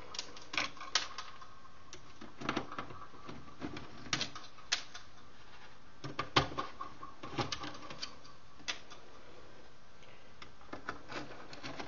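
A number two Phillips screwdriver turning out screws from a metal chassis: irregular light clicks, scrapes and metallic knocks, with small screws clinking as they are set down on the metal. The loudest knock comes about six and a half seconds in.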